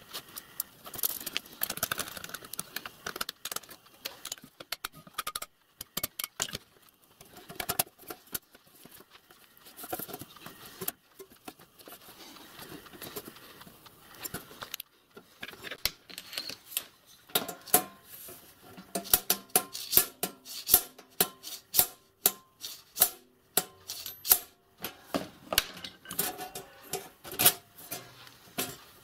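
Hand tools tapping and scraping on the sheet-metal water tank as its corners are worked flush for soldering: scattered clicks and scrapes at first, then a dense run of sharp metallic taps in the second half, some ringing briefly.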